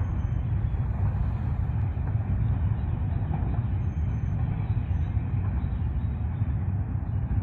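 Steady low rumble of a Norfolk Southern freight train, heaviest in the deep bass and unchanging throughout.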